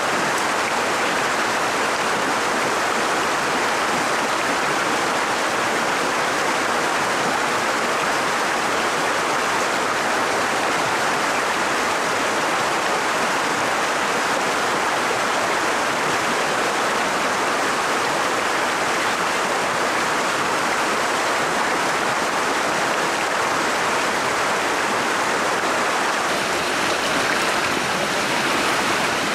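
Fast, shallow stream rushing over stones: a steady water noise.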